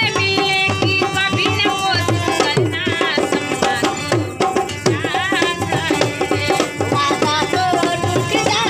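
Indian folk music: a steady tabla-style hand-drum beat under a wavering, ornamented melody line.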